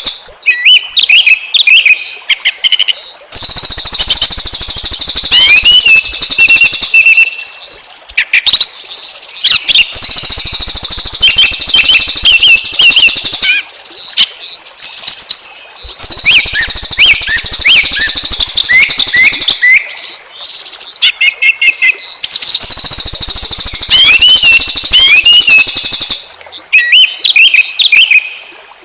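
Small songbirds singing a loud, fast, chattering 'tembakan' song: rapid high trills and sharp chirps in repeated bursts, with brief pauses between phrases. This is the kind of song played as a lure to draw small birds.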